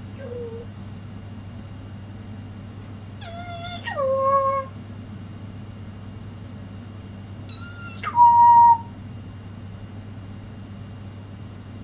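African grey parrot calling: a faint short note at the start, then two loud calls about four and eight seconds in, each sliding onto a held, steady note. The second call ends on a higher note and is the louder of the two.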